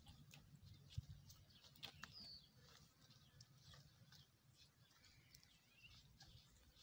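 Near silence: faint outdoor ambience with a couple of faint, short bird chirps, scattered soft ticks, and a single soft thump about a second in.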